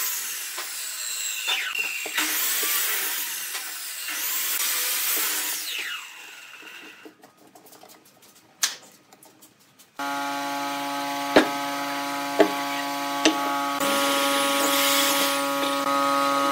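Workshop handling noise: several seconds of loud scraping and rubbing of wood and metal as steel bar clamps go onto a wooden block, then a few sharp clicks as they are tightened. From about ten seconds in, an electric drill's motor runs at a steady pitch, with a few sharp knocks, and stops near the end.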